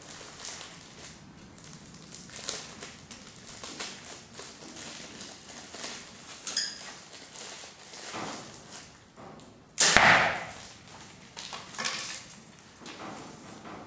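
Arrows striking a foam 3D archery target: a series of short sharp hits, one about six and a half seconds in with a brief ringing tone, and the loudest about ten seconds in.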